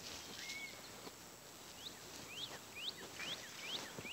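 Birds calling: a short level whistle near the start, then a run of quick rising chirps, about two a second, from about two seconds in.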